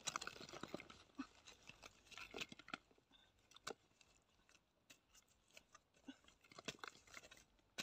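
Faint, scattered crunches and scrapes of a metal blade digging into dry, cracked mud, with clods crumbling away.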